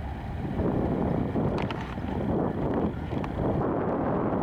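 Wind buffeting the microphone, an uneven low rumble that rises and falls, with a few faint clicks.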